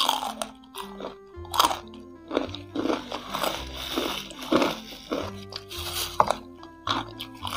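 Crunching bites and chewing of sauce-coated crispy fried chicken feet, several sharp crunches in a row, over background music with a steady bass line.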